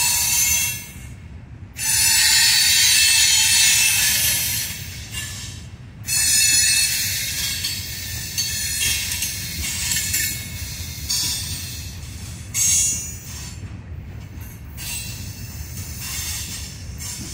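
Loaded ballast hopper cars rolling past, their steel wheels squealing in high-pitched waves that swell and fade several times, loudest about two seconds in and again around six seconds, over a steady low rumble of wheels on rail.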